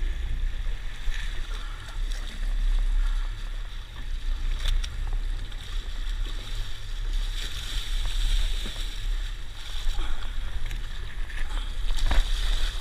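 Boat engine running with a steady low rumble, and water rushing and splashing along the hull, with a few light knocks.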